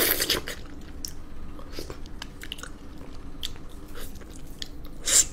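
Close-miked wet biting and chewing of ripe mango flesh pulled off a cubed mango half, with a louder wet bite at the start, soft mouth clicks through the middle and another short wet bite near the end.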